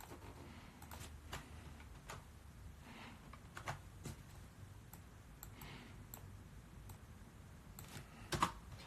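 Faint, irregular clicks and taps, about ten of them scattered with no steady rhythm, with a louder knock near the end.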